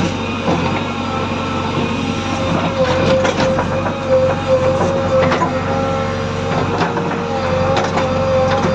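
JCB 3DX backhoe loader working: its diesel engine runs steadily under a held whining tone, with frequent sharp knocks and clanks.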